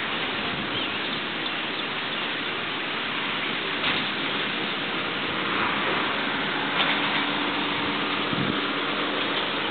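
Steady outdoor hiss, even and unbroken, with a faint low hum like a distant engine coming in about two-thirds of the way through and a couple of brief high chirps.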